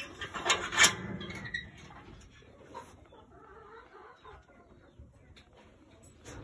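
Chickens clucking, with a loud clatter of wire-mesh caging being handled in the first second.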